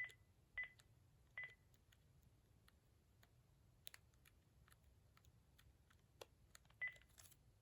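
Cordless phone handset keypad beeping as buttons are pressed: short single-pitch beeps, three in the first second and a half and one more near the end, with faint key clicks in between.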